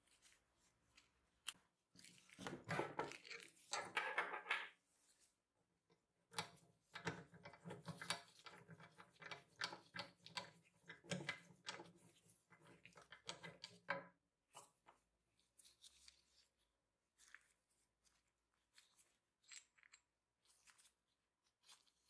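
Rusty metal parts of an antique can-sealing machine being handled during disassembly: a bolt with washers and a lever arm clicking and scraping against the cast-iron frame. Two busy stretches of clinks and scrapes, then scattered light clicks in the second half.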